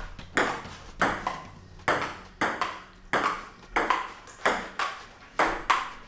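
Table tennis rally: the ping-pong ball clicking off paddles and the table top, about two hits a second. Each hit is a sharp click with a short ring.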